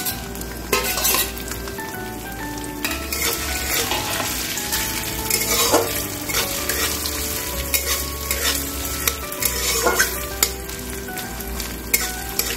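Chopped coconut frying in hot oil in a metal kadai, sizzling steadily, while a metal spatula scrapes and stirs it against the pan in repeated short strokes.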